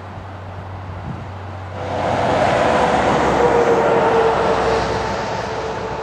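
A road vehicle passing close by: a rush of tyre and engine noise swells suddenly about two seconds in, carrying a steady hum that drops slightly in pitch as it goes past, then slowly fades.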